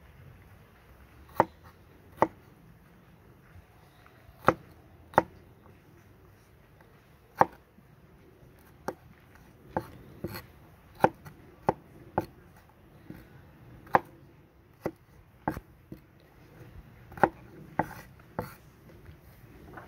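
Kitchen knife chopping sweet peppers on a wooden cutting board: sharp, separate knocks as the blade strikes the board, irregularly spaced at roughly one a second, some coming in quick pairs.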